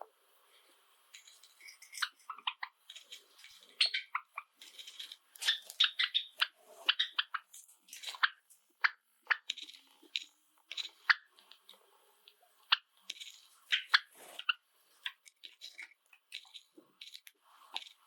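Pet Java sparrows making quick, short chirps and clicks in an uneven patter, starting about a second in.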